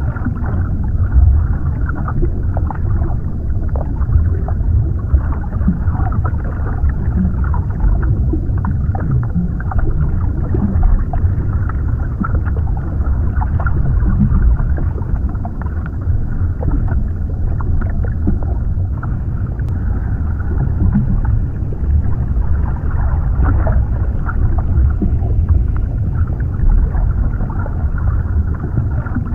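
Underwater ambience: a steady, muffled low rumble with small irregular pops and ticks scattered through it.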